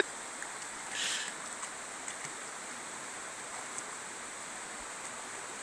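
Steady rush of a shallow river, with a brief splash about a second in from a beagle wading through the water.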